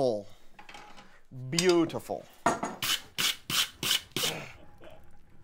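Wire brush scrubbed hard across red-hot steel on the anvil, a quick run of about eight rasping strokes, about four a second, knocking the forge scale off the iron.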